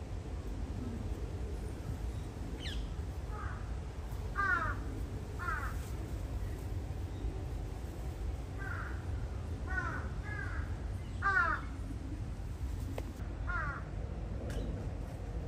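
Crows cawing repeatedly, about nine short caws in loose groups, over a steady low hum.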